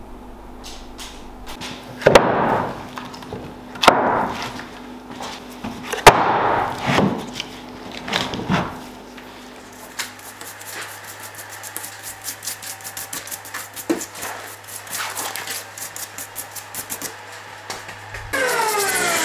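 Three heavy knocks, about two seconds apart, each with a ringing tail. Then a stiff brush scrubs the rough bark of a dried burl in quick, even strokes, growing louder near the end.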